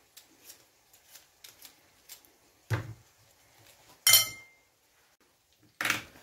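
Potato peeler scraping skin off a potato in quick repeated strokes, followed by three clunks of peeler and potato against a ceramic plate. The loudest clunk, about four seconds in, is a ringing clink.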